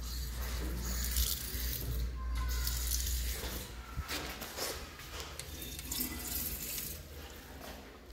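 Restroom sink faucet running water into the basin, with a hand held under the stream, over a steady low hum. The water is loudest in the first few seconds.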